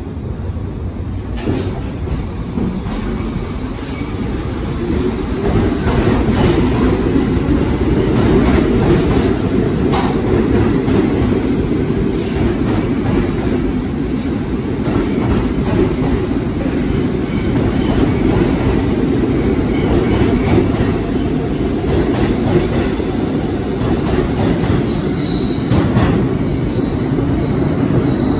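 Bombardier R62A subway train pulling out of an underground station: a steady low rumble of motors and wheels that swells about five seconds in as it gathers speed, with a few sharp clicks of wheels over rail joints and a faint high wheel squeal near the end.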